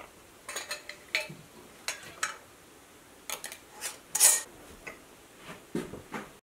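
Metal canning lids and screw bands clinking against glass mason jars as they are set on and screwed down: about ten scattered light clicks, with one louder clink a little past the middle.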